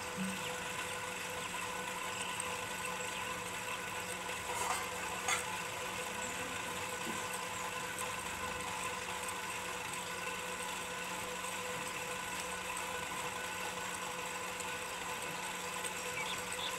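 A steady engine-like mechanical hum running at an even pitch, with a couple of faint clicks about five seconds in.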